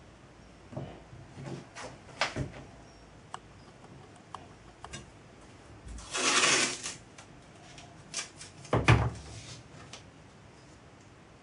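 Workbench handling sounds: light clicks and taps of fingers on the lagging and metal of a small model steam traction engine. A short loud rasp comes just after six seconds in and another near nine seconds, as masking tape is pulled off its roll.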